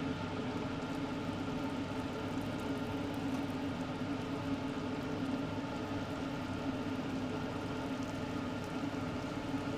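Malpua batter deep-frying in hot oil in a small iron kadai: a steady sizzle and bubbling, with a steady hum underneath.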